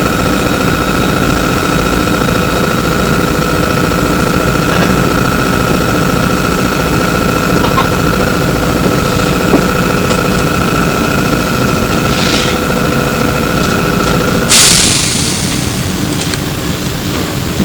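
Ride inside a Flyer E902 electric trolleybus: a steady high whine over a low rumble from the bus's onboard machinery. About fifteen seconds in, a sudden loud burst of air hiss cuts in and fades, and the whine stops.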